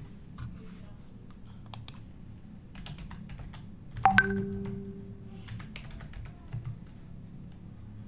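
Typing on a laptop keyboard: scattered keystrokes and clicks. About four seconds in, a single sharper knock with a brief ringing tone after it stands out as the loudest sound.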